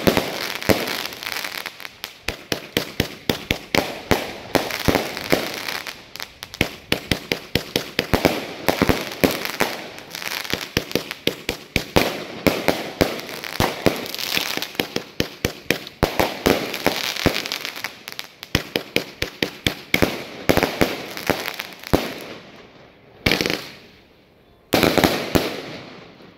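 Multi-shot crackling firework firing a rapid string of shots, several a second, each bursting into crackling stars. The shots thin out near the end, with one last loud crackling burst.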